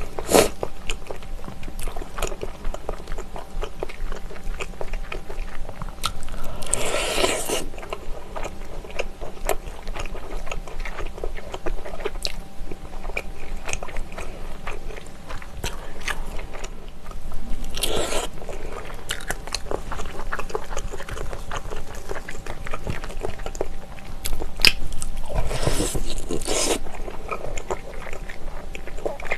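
Close-miked eating of braised ox knee held on the bone: biting and chewing with many wet clicks and smacks. There are a few longer, louder stretches of eating noise, about a quarter of the way in, past the middle and near the end.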